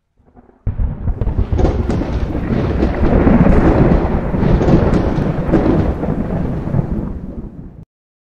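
A long rolling thunder rumble with crackles, a stock intro sound effect, starting just under a second in and cutting off suddenly near the end.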